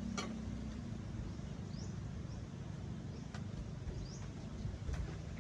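Outdoor ambience with a steady low rumble, and a small bird's short rising chirp repeated three times about two and a half seconds apart. A few sharp clicks sound in between.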